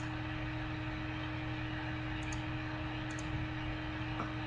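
Steady electrical hum and hiss, with two faint clicks of a computer mouse about two and three seconds in.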